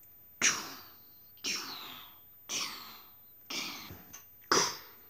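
Gunshots imitated with the mouth, five short hissing bursts about one a second, the first and last the loudest.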